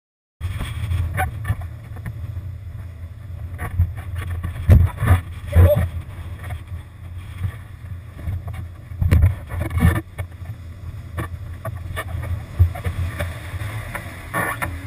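Water sloshing around a surfboard, heard through a board-mounted action camera, with a constant low rumble of wind and water buffeting the microphone and irregular louder splashes.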